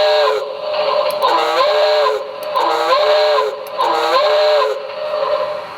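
Small steam locomotive whistle sound effect from a QSI Maxx Traxx model-train sound system, played through a speaker. The several-note whistle finishes a long blast, then gives three shorter blasts of about a second each, each one sliding up in pitch as it opens and down as it closes.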